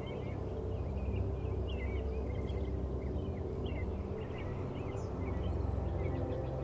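Small songbirds chirping and twittering continuously in many short rising and falling notes, over low sustained tones of an ambient music bed.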